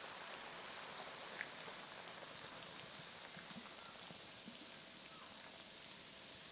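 Faint, steady fizzing and sizzling from a hot pan of prawns as a can of Sprite is poured in, with a light click about a second and a half in. The soda fizzes only weakly, which the cook puts down to the pan being hot.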